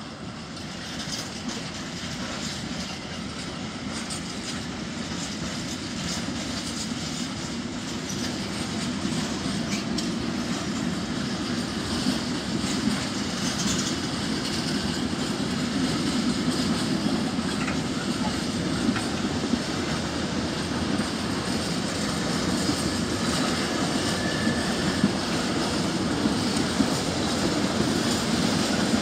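Freight train of empty flat intermodal wagons rolling past: steady rumble and clatter of steel wheels on the rails, growing louder over the whole stretch.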